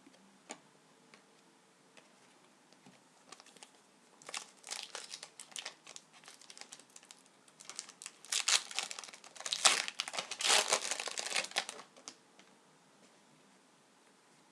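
Hockey card pack wrapper crinkling and rustling as it is opened by hand, in two spells of sharp crackles, the second from about eight seconds in and louder.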